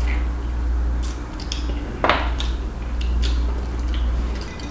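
Close-up eating sounds: chewing and lip smacks on chicken and rice, short clicks scattered throughout, with one louder smack about two seconds in, over a steady low hum.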